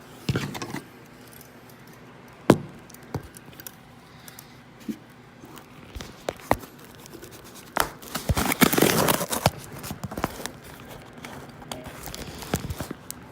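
Keys jangling amid scattered handling clicks and knocks, with a louder stretch of rustling and scraping about eight seconds in.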